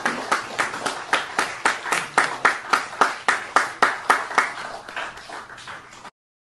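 A group of people clapping together in a steady rhythm, about three claps a second, growing fainter toward the end and cutting off suddenly about six seconds in.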